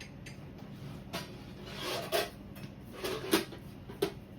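A Pullman loaf pan being pulled out and handled: a scrape of it sliding out, then a few knocks and clunks as it is set down and moved.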